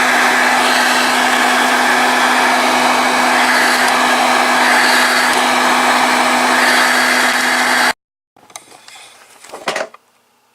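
Electrolux Epic 8000 vacuum cleaner running at full suction: a loud, steady rush of air over a constant motor hum. It stops abruptly about eight seconds in, and a few faint clicks and knocks of handling follow.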